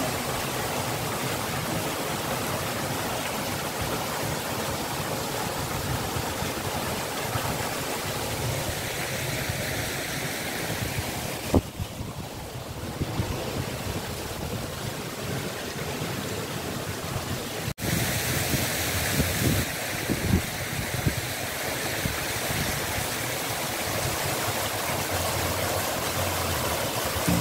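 Water from a tiered stone cascade fountain splashing steadily down its ledges into the basin as a constant rushing hiss.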